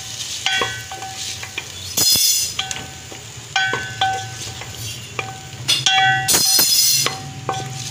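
A spoon stirring pieces of liver frying in oil in a steel pot, knocking and scraping against the metal so the pot clinks and rings again and again, with short bursts of sizzling.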